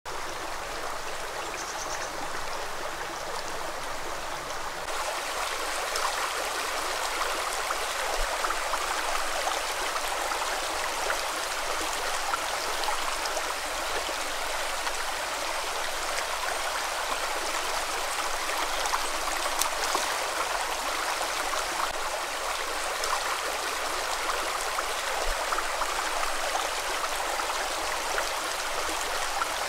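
Shallow stream running over pebbles, a steady water noise that grows a little fuller about five seconds in.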